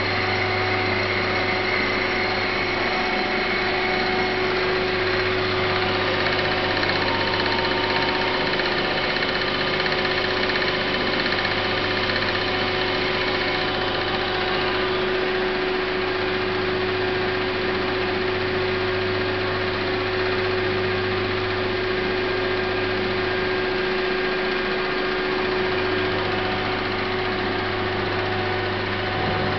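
Tornos Bechler ENC 16 CNC lathe running: a steady machine hum with several steady tones. The higher tones change about halfway through, and the low hum drops away briefly near the end.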